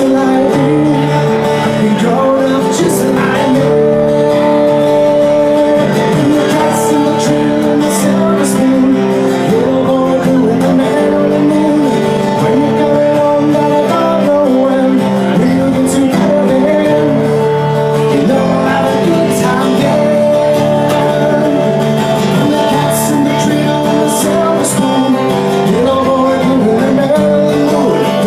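A man singing into a microphone while strumming an acoustic guitar: a live solo acoustic song.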